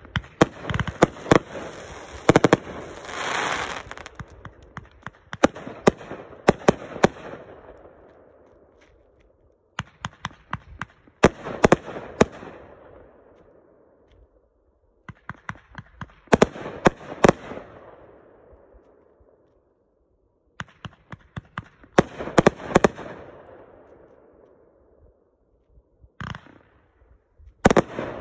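500-gram consumer firework cakes firing volleys, the end of a 108 Fireworks Disruptor and then a Golden Bear Honey Pot. Each salvo is a quick run of sharp launch thumps and burst bangs, followed by a crackling hiss that fades away. The salvos repeat about every five seconds.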